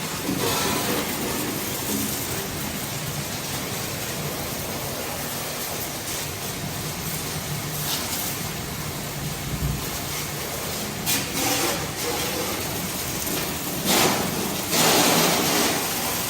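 Water spraying from a hose onto a tractor during washing: a steady hiss of spray that gets louder in surges about half a second in, around eleven seconds in and again near the end.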